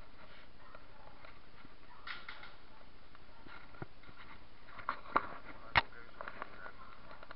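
A few sharp clicks and knocks, three of them close together about five to six seconds in, the last the loudest, over a steady low hiss.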